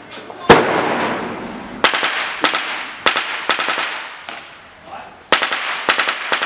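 Airsoft rifle shots: a series of sharp cracks at uneven intervals, the first about half a second in the loudest, with a quick cluster of shots near the end.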